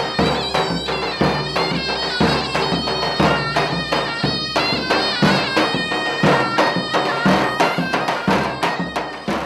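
Traditional folk music led by a wind instrument playing a melody over a steady drum beat.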